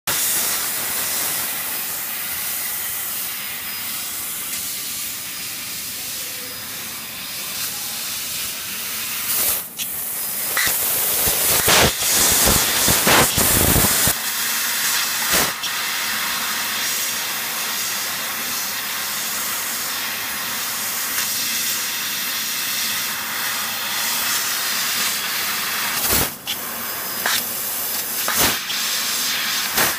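Fiber laser cutting machine cutting sheet metal: a steady high hiss from the cutting head's gas jet as the beam cuts and throws sparks. The hiss grows louder and rougher for a few seconds about a third of the way in, and a few short sharp bursts stand out later.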